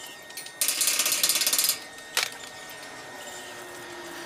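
Arc welder striking and holding an arc on the steel railing for about a second: a short tack weld, with the dense crackling sizzle of stick welding. A single sharp click follows about a second later.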